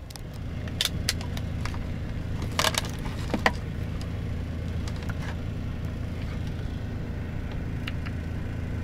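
Small clicks and a brief light rattle as multimeter test probes and their leads are handled and touched to the terminals of LiFePO4 battery cells, over a steady low hum.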